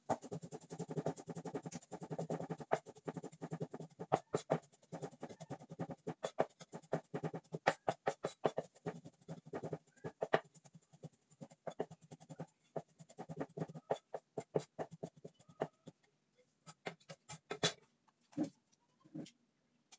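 Cleaver chopping garlic cloves on a round wooden chopping board: rapid knocks, several a second, with stretches of very fast mincing strokes. The chopping thins out and stops near the end, followed by a couple of short, separate sounds.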